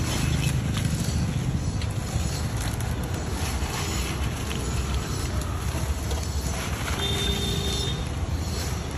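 Crisp fried banana chips rustling and crackling as they are scooped by hand into a plastic bag, over a steady low background rumble. A short steady tone sounds about seven seconds in.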